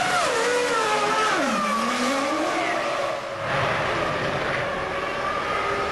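Formula 1 V10 engines running. One car's engine note drops sharply in pitch and then climbs again, followed by a steadier blend of race-car engine noise.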